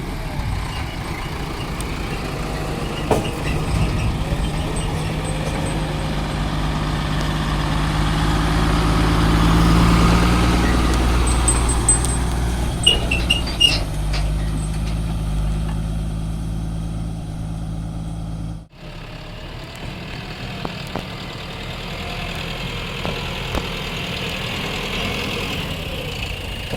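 Diesel engine of a JCB 3DX backhoe loader working under load, swelling to its loudest about ten seconds in, with a few short high metallic squeaks. The sound cuts off sharply about two-thirds of the way through, then a quieter engine drone resumes.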